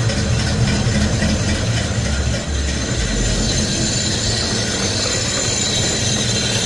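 A steady, loud low mechanical rumble with a faint steady high whine above it.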